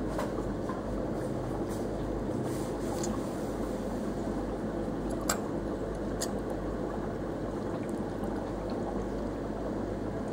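Reef aquarium's water circulation: a steady wash of moving, trickling water with the low running of its pump. Two small clicks come about halfway through.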